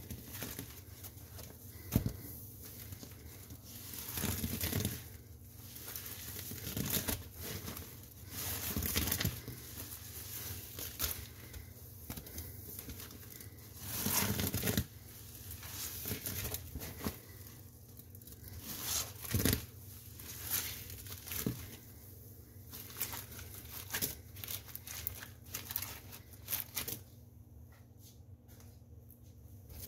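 A sponge loaded with soap and cleaning paste is being squeezed and worked by hand. The foam crackles and squishes in irregular bursts, with a few sharp clicks.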